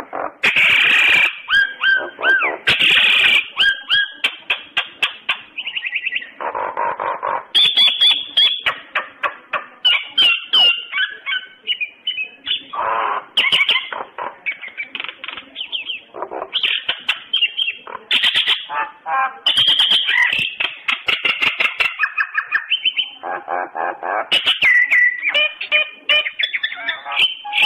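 Common myna (Indian myna) singing a long, varied, almost unbroken run of chirps, whistles, rasping notes and sharp clicks.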